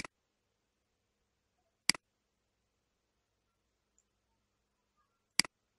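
Computer mouse left-button clicks: three sharp single clicks, the second about two seconds after the first and the third about three and a half seconds after that.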